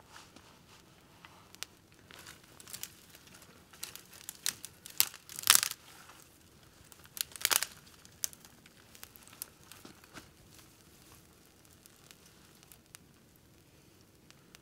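Fire-starting material being handled by hand: bursts of crinkling and tearing with a few sharp snaps. The sounds are busiest in the first half and thin out toward the end.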